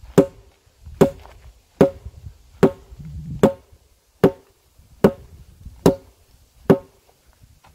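Hickory Arms wooden waister (training sword) striking a pell of stacked tires in repeated drill strikes: nine sharp knocks, evenly spaced a little under one a second.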